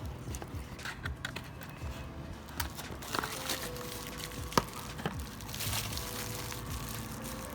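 Rustling and crinkling of packaging as LED side marker lights are handled and unwrapped, with a few sharp plastic clicks, the loudest about four and a half seconds in.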